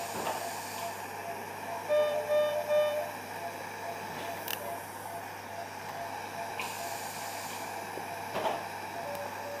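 Operating-theatre patient monitor beeping at a steady pace, about two short beeps a second, with a louder, quicker run of beeps about two seconds in. Under it is the steady hum and hiss of theatre equipment, with a couple of faint clicks.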